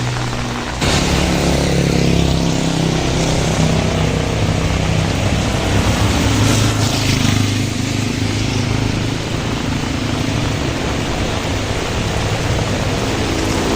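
Steady hiss of heavy rain with a motor vehicle's engine running close by, its pitch falling about a second in as it goes past.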